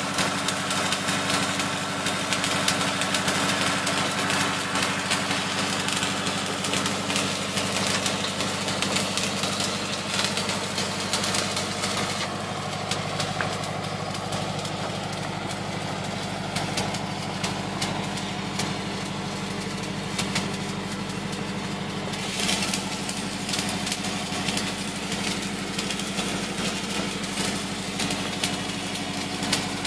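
Arc welding on a steel pipeline repair sleeve: the arc's dense crackle runs for about the first twelve seconds, stops for about ten, and starts again for the rest. A steady engine hum runs underneath.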